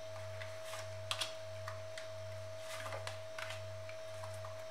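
Tarot cards being dealt from the deck onto a wooden table: light, scattered clicks and soft taps of card on card. Under them run a low hum that pulses about three times a second and a steady faint tone.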